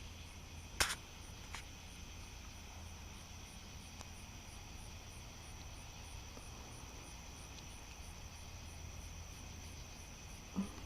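Night insects, crickets among them, singing steadily, with a high pulsing call repeating evenly throughout. A single sharp click comes about a second in.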